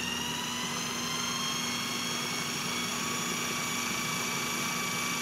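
Food processor motor running continuously, pureeing peas, watercress, butter and crème fraîche; its whine rises slightly in pitch over the first couple of seconds as it reaches full speed, then holds steady.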